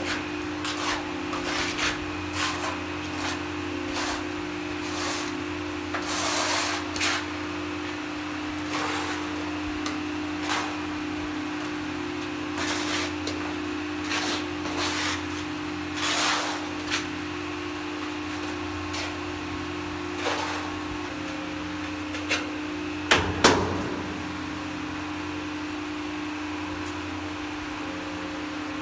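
Ceramic wall tiles being slid and pressed by hand into combed tile adhesive: repeated short scraping and rubbing strokes with light clicks, and two sharp knocks about three-quarters of the way through, over a steady low hum.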